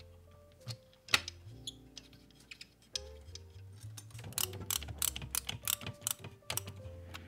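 Clicks and taps of hands handling a PC radiator fan in its case, one sharp click about a second in, then a run of quick clicks from about four seconds in as a screwdriver turns the radiator fan screws. Soft background music plays underneath.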